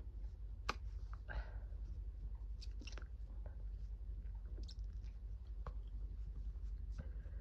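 Close-up wet mouth and nose noises from a person with a head cold: scattered small clicks, the sharpest a little under a second in, and a brief breathy sound about a second and a half in, typical of a blocked nose.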